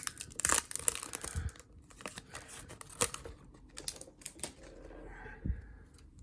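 A foil pack of baseball cards torn open and the cards handled and flipped, with rapid sharp clicks and crinkles, busiest over the first four seconds and then quieter.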